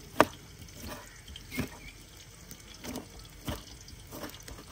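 Knife cutting tomatoes on a cutting board: about six separate short knocks, spaced roughly half a second to a second apart, the first one the loudest.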